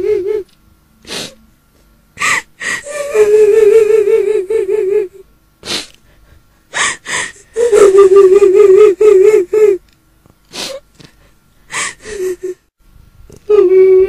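Eerie crying of a woman's voice, as a horror sound effect of a kuntilanak ghost: long wavering wails held on one pitch, about two seconds each, broken by sharp gasping, sobbing breaths in between.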